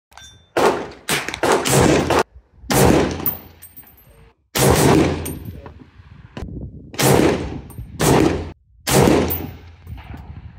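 Springfield Armory M1A semi-automatic rifle in .308 Winchester firing a string of shots spaced about a second or so apart, each a sharp crack with a decaying tail. Brief thin metallic pings sound between some of the shots.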